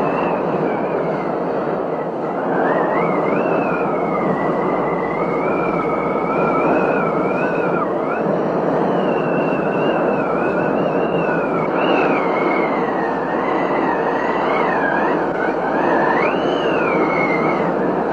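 Steady rush of a heavy rainstorm, with a thin, wavering high whistle drifting up and down over it from a few seconds in.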